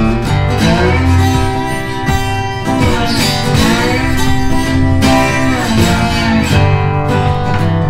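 Background music with guitar, over an opening title sequence.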